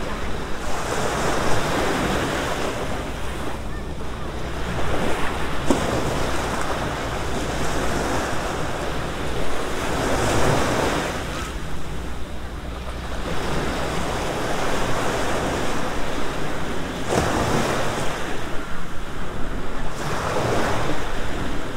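Small waves breaking and washing up onto the sand, surging every few seconds, over a low rumble of wind on the microphone.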